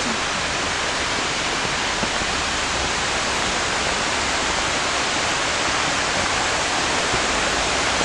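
Waterfall water rushing steadily, an even hiss that grows slightly louder.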